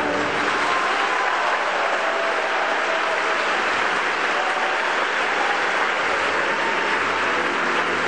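Theatre audience applauding steadily, with the pit orchestra playing faintly underneath.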